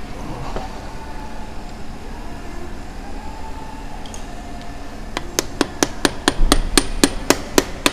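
Quick, light hammer taps on a driver, seating the bearing and end plate of a Snap-on MG725 half-inch air impact wrench so it sits flush. The taps start about five seconds in, sharp and even, about four or five a second.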